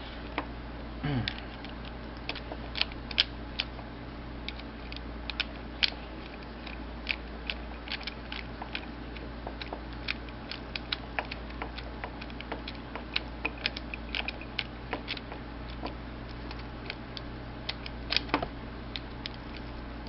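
Screwdriver working the screws of a Schlage F-Series key-in-knob lockset: irregular small metallic clicks and taps of the tool against the lock's metal parts, a few louder clicks among them, over a steady low hum.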